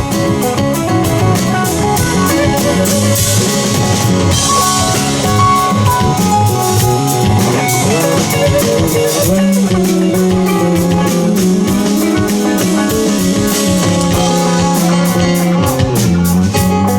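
Live rock band playing an instrumental jam: a drum kit keeps a steady beat under electric guitar and bass guitar, with no singing.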